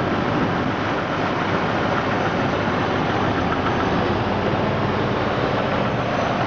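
Jeep 4.0-litre straight-six idling with a rapid, steady knock, the sound of a warm engine that mechanics place where the bellhousing meets the oil pan; its cause is still unfound, with bearings, flexplate, torque converter, starter and belt all checked.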